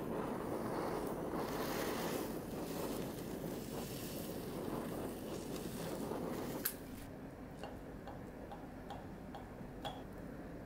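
Handheld kitchen blowtorch flame hissing steadily while browning melted cheese, cut off with a sharp click about two-thirds of the way in. After it, a few light clinks of a knife and fork against a ceramic plate.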